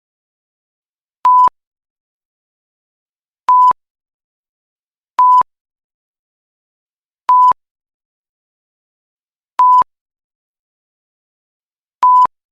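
Censor bleep sound effect: six short beeps of a single steady tone, each about a fifth of a second long, spaced about two seconds apart with silence between.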